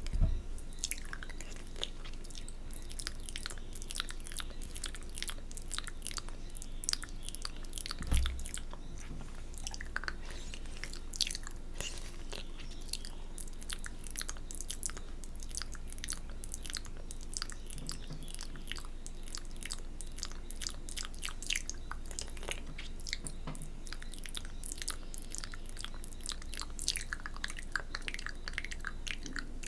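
Close-miked wet mouth sounds for spit-painting ASMR: a dense run of lip smacks, tongue clicks and finger licking. One low thump about eight seconds in.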